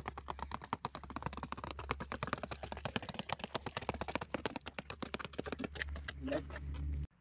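Rapid, continuous patter of running shoes tapping on an asphalt road during a quick-stepping running drill, several footfalls a second, over a low steady hum. It cuts off suddenly near the end.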